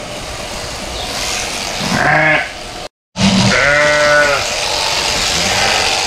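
Ewes bleating: one call about two seconds in, then a longer, drawn-out bleat just after a sudden break. The penned ewes are complaining about being shut in on a low-grain weaning ration.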